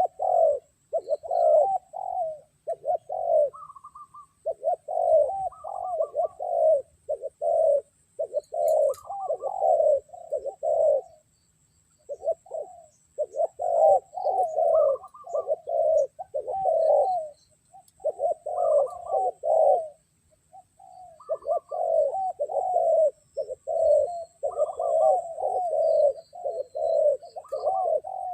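Spotted doves cooing: short coo phrases repeated in quick succession, breaking off briefly about 4, 12 and 20 seconds in.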